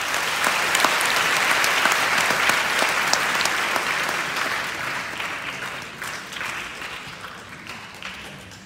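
Audience applause in an auditorium, dense clapping that fades away gradually.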